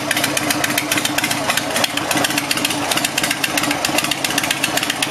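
Harley-Davidson Sportster V-twin idling steadily through straight drag pipes with no baffles, a loud, even train of rapid exhaust pulses.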